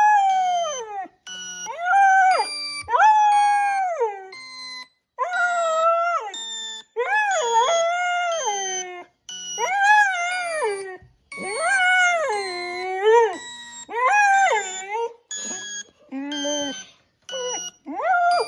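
A dog howling: a string of long, wavering howls, each about one to two seconds, one after another with short breaks.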